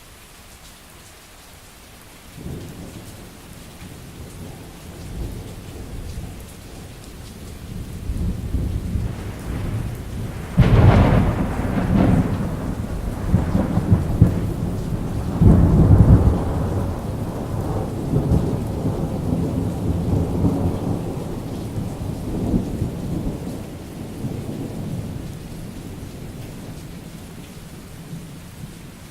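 Steady rain with a long roll of thunder: a low rumble begins a couple of seconds in, builds, breaks into two loud cracks around the middle, then rolls on and fades slowly.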